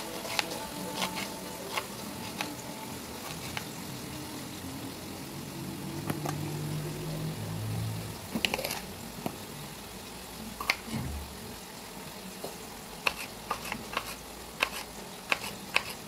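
Paring knife cutting through fresh green beans and a green bell pepper: sharp, crisp clicks and snaps, a few at a time, coming quicker near the end.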